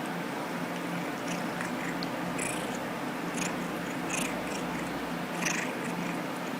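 A few short, soft clicks from a Persian cat, spread over several seconds, above a steady low hum and hiss.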